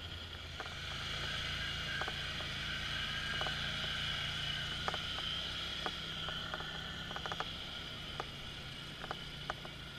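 Polaris Sportsman ATV engine running steadily at low speed as the quad crawls up slickrock, with scattered small clicks and ticks.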